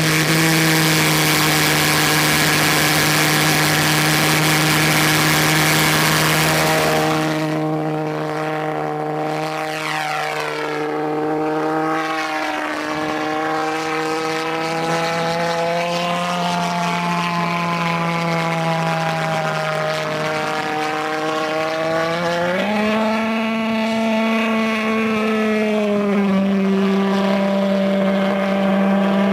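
Pulsejet engine of a World Models TameCat RC plane running, one loud, steady low note with strong overtones. For the first few seconds it is close by with a lot of hiss. Then, with the plane airborne, the note wavers as the plane flies about, and it steps up in pitch about three quarters of the way through.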